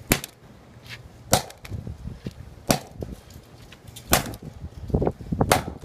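A flip phone being smashed: five sharp, hard blows about a second and a half apart.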